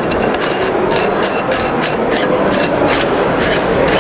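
Parts of an airsoft suppressor being fitted together by hand: a series of light scraping clicks, about three a second, over steady exhibition-hall crowd noise.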